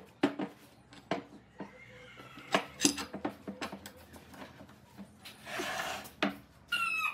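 Metal clinks and knocks of pipe clamps being slid along their steel pipes and set against the boards, with a brief scrape of wood on the bench a little after five seconds and a short high squeak near the end.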